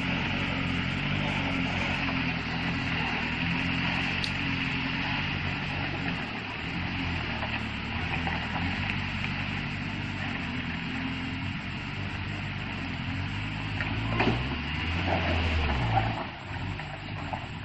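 Engine of a heavily overloaded small truck running steadily under load as it drives along a muddy track. Near the end there are a few sharp knocks and the engine note shifts as the top-heavy truck leans over.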